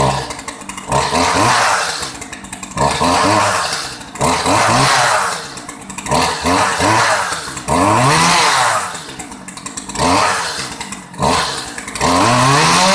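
Stihl MS211C chainsaw's two-stroke engine being revved again and again, each blip of the throttle rising and dropping back over a second or so. Near the end it is held steady at high speed.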